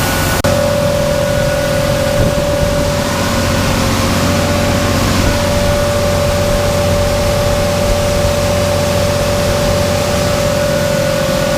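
Heavy diesel machinery running steadily, a low engine hum with a constant whine over it, with a brief break just under half a second in.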